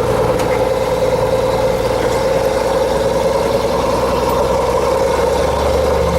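Engine of a 5-ton military cargo truck running steadily, heard from the open cargo bed: an even diesel drone with no change in pitch or loudness.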